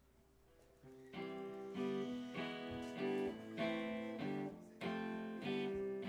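Guitar strumming chords, starting about a second in: a regular pattern of ringing chords, each struck about every half second.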